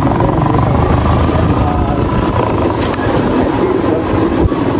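Motorcycle running on the move, with a steady low wind rumble over the microphone; a voice is faintly heard now and then.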